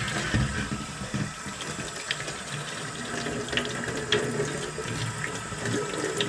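Kitchen tap running and splashing onto a stainless-steel water-filter tank being rinsed and rubbed by hand in a stainless sink, with a few light knocks.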